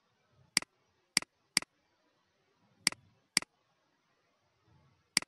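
Computer mouse button clicking six times at uneven intervals, each a sharp click with a quick double snap of press and release.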